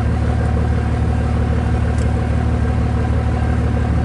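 Steady low drone of an idling engine over a constant wash of noise from a long freight train rolling past, with one faint click about two seconds in.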